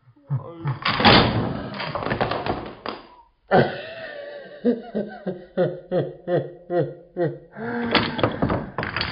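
A Jenga tower collapsing about a second in, its blocks clattering onto the table for about two seconds. Then laughter in short, evenly spaced bursts. Near the end, the loose blocks clatter again as they are swept by hand.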